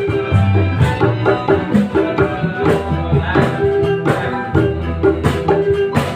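Music played by a band, with a kendang hand drum beating a steady rhythm under sustained pitched instruments.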